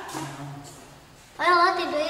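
A person's high voice, drawn out and sing-song, comes in loudly about two-thirds of the way through after a quieter moment.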